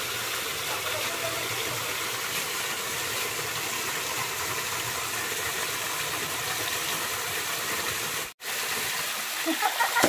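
Steady rushing of a shallow stream flowing over rocks, cutting out for an instant about eight seconds in.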